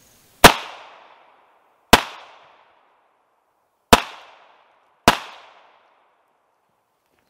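Four shots from a SIG P232 pocket pistol firing .380 ACP (9mm Kurz) NovX copper-polymer rounds. Each is a sharp crack with a short echoing tail; the first three come about two seconds apart and the last follows about a second later.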